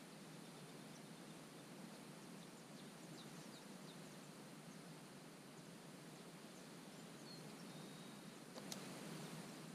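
Near silence: faint steady outdoor hiss with a few faint, short, high bird chirps, and a single sharp click near the end.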